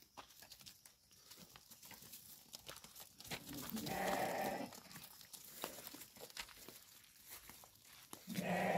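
A sheep bleats twice, each call about a second long, the first a little before halfway and the second near the end, over scattered clicks and scuffs of hooves as the flock moves about.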